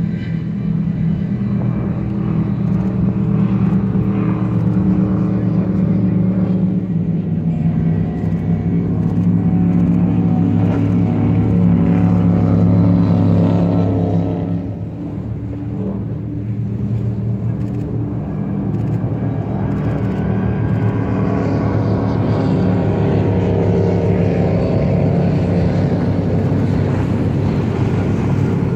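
Engines of powerboats running at speed as they pass, a loud steady low drone. It eases off a little past halfway, then builds again as a pack of boats comes by.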